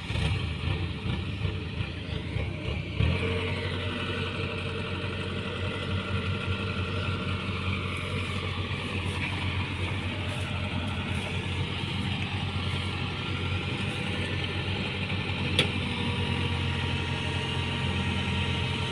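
Farm machine engine running steadily, picking up about three seconds in, with a single sharp click near the end.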